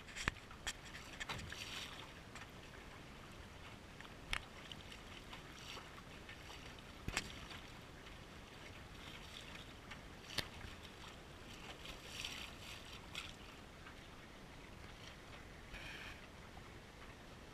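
Water lapping and splashing against the hull of a Fusion 15 sailing dinghy under way, with a few sharp knocks scattered through.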